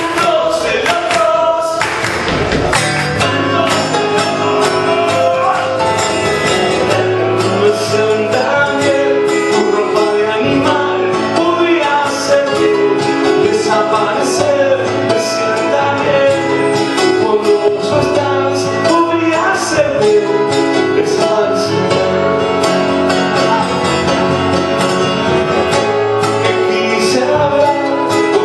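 Live song: a man singing to his own strummed acoustic guitar, with keyboard chords held underneath.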